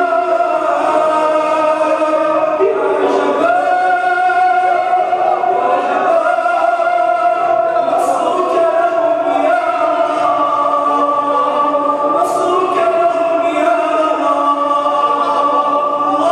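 An imam's voice chanting an Arabic du'a (supplication) in long, held melodic notes, amplified through a microphone, with the congregation's voices joining in.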